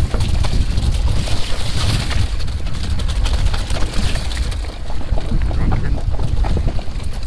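Mountain bike riding downhill over wet snow and slush: wind buffeting the microphone, tyres hissing through the slush and the bike's chain and frame rattling with many small knocks. The hiss thins out about halfway through.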